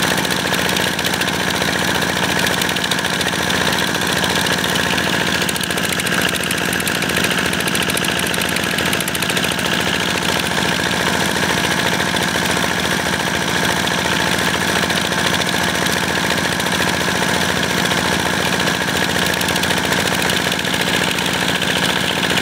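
A 185-type single-cylinder diesel engine running steadily under load as it drives a water pump, with muddy water gushing out of the outlet hose and splashing onto the ground.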